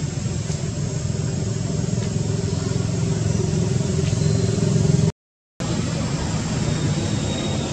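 Steady low rumble with a faint steady hum, broken by a half-second dropout about five seconds in.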